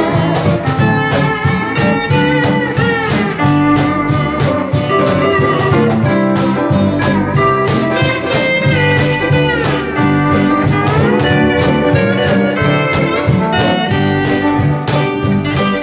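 Hawaiian steel guitar playing a slow melody with smooth sliding glides between notes, over strummed ukulele and rhythm guitar, bass and light percussion keeping an even beat.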